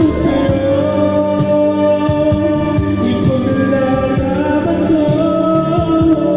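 Karaoke: a man singing into a microphone over an instrumental backing track, holding long notes.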